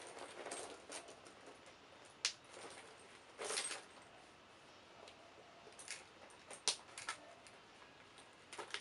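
A handbag being handled: scattered light clicks and clinks from its gold metal chain strap and hardware, with a brief rustle of the bag about three and a half seconds in.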